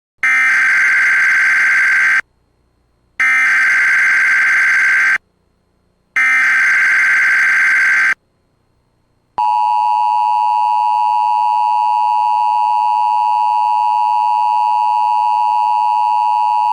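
Emergency Alert System SAME header: three loud bursts of data screech, each about two seconds long with a second's gap between them. About nine seconds in, a steady EAS attention tone follows and holds without a break.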